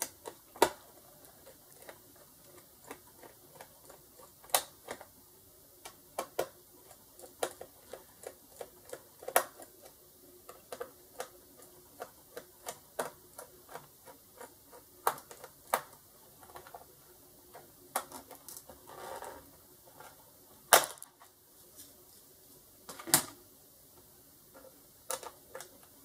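Irregular small clicks and taps of a small screwdriver and screws against a Toshiba Satellite laptop's plastic bottom case as the access-cover screws are backed out and the cover is lifted off, with a few louder knocks and a short scrape about three-quarters of the way in.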